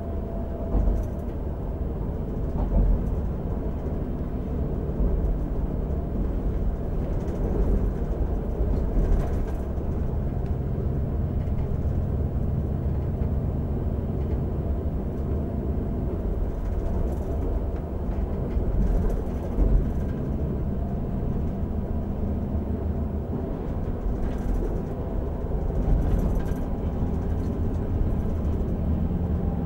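Siemens Desiro Classic (class 642) diesel multiple unit running on the line, heard from the driver's cab: a steady low diesel engine hum with wheel and rail noise, and a few louder clacks from the wheels over the track.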